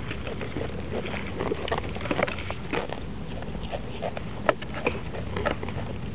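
A goat grazing right at the microphone: irregular crisp snaps and rustles of grass blades being bitten and torn off, one sharper snap about four and a half seconds in.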